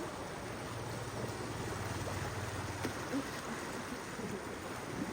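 Steady rushing of a river. A faint low hum sounds for about two seconds near the start, and there are a few light ticks around the middle.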